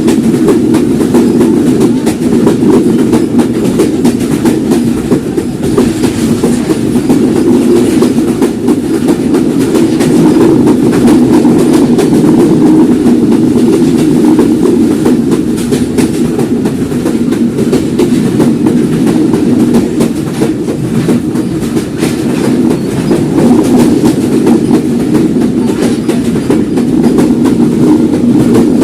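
Rupsha Express passenger train running at speed: a steady, loud rumble of wheels on the track, with a continuous clickety-clack of wheels over the rail joints.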